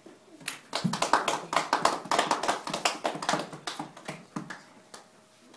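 A small audience applauding: a dense patter of hand claps starts about half a second in and thins out and dies away after about four seconds.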